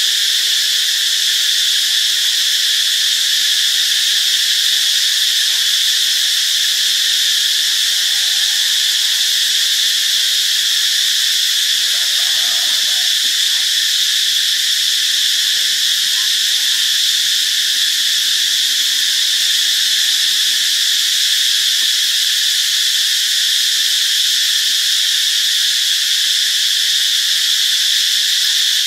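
Cicadas singing: a loud, steady, unbroken high buzz that holds the same pitch throughout.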